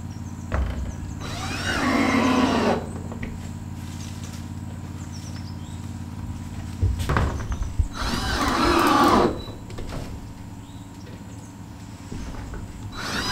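Cordless drill driving screws into a window frame: two runs of a couple of seconds each, the motor's whine rising and falling in pitch as it drives a screw home, with a few knocks just before the second run and a third run starting near the end.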